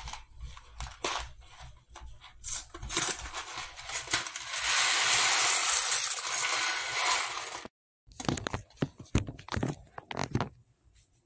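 Cardboard box of dry macaroni being torn open, then the macaroni poured from the box into a pot of boiling water in a steady rush for about three seconds. The sound cuts off suddenly, followed by scattered clicks and knocks.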